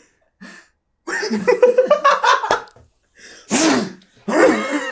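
A man imitating a sound effect with his mouth: throaty, wavering voiced noises, then a short hissing blast near the end.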